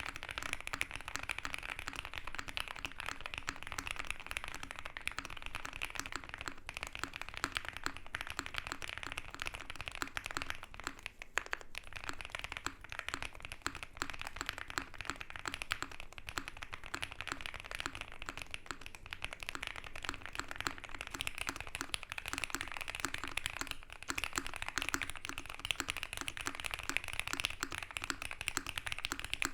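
Continuous fast typing on an OwLabs x Mr. Suit TKL custom mechanical keyboard with a polycarbonate plate, foam-dampened case and GMK keycaps: a dense run of keystroke clicks and clacks, with a short pause about 11 seconds in. The switches are swapped between sets, about 6 and 21 seconds in.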